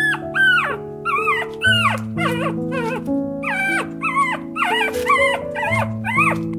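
Puppy whining: a quick string of short, high whimpers, each rising and then falling in pitch, about two a second, over soft piano music.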